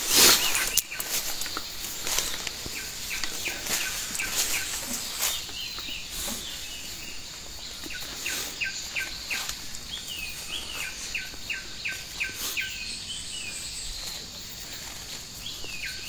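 A bird singing a long run of quick, downward-slurred whistled notes. Footsteps and brushing through undergrowth, and a steady high insect buzz, sound underneath.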